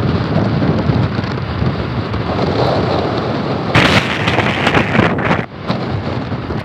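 Wind buffeting the phone microphone through an open car window while driving, over a low rumble of the road and engine, with louder gusts about four and five seconds in.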